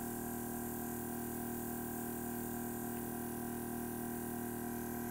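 Airbrush compressor running with a steady hum, and the faint, even hiss of air through the airbrush as it sprays.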